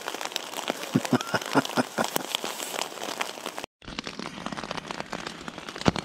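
Rain falling thick and fast on a DD 3x3 tarp hide: a dense hiss full of many sharp individual drop taps. The sound cuts out for a moment about three and a half seconds in.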